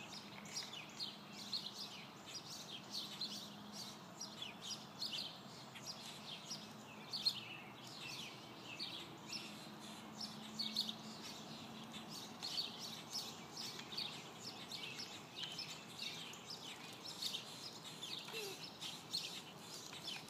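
Birds chirping, many short high chirps overlapping continuously.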